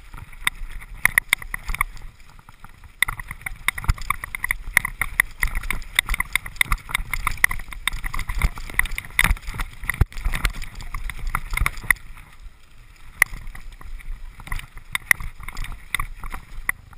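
Mountain bike descending a rocky dirt trail, heard from a camera mounted on the rider: a steady rattle and clatter of the bike and tyres over stones and roots. It eases off for a couple of seconds past the middle.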